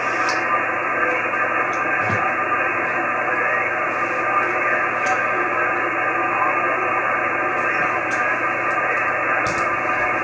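Steady receiver hiss from an Icom IC-9700 tuned to the XW-2B satellite's linear-transponder downlink in single sideband, cut off sharply above about 3 kHz, with a few faint ticks and no clear voice.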